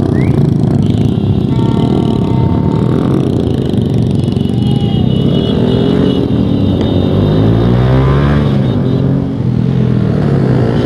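Motorcycle engines running as a group rides off, heard from one of the bikes, with pitch rising and falling as they rev and change speed, and wind rumble on the microphone. The rider's own bike has a newly fitted aftermarket exhaust.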